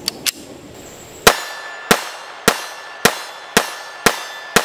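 Two faint clicks, then a CZ-50 .32 ACP blowback pistol fired seven times in quick succession, about half a second apart. Each shot leaves a short ringing tail.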